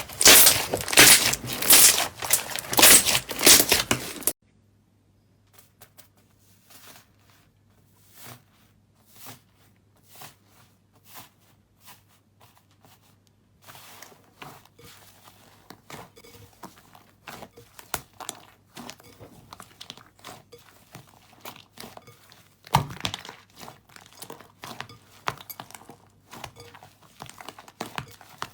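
Slime worked by hand, crackling and popping: loud, dense crinkly crackling for the first four seconds. An abrupt cut then leads to much quieter scattered clicks and small squelching pops, which grow louder again about 23 seconds in.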